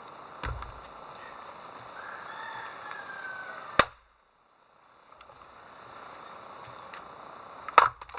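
Two sharp knocks about four seconds apart over a quiet outdoor background, the first cut off by a brief drop to silence, with a faint falling whistle-like call between them.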